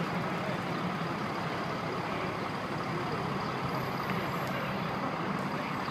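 Fire trucks' diesel engines running at a slow parade crawl, a steady low rumble over general street noise.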